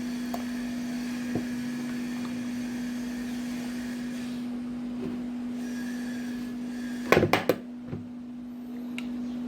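Steady low appliance hum, with a few faint ticks and a brief clatter of a metal spoon knocking against a bowl about seven seconds in, as yogurt is spooned into the marinade.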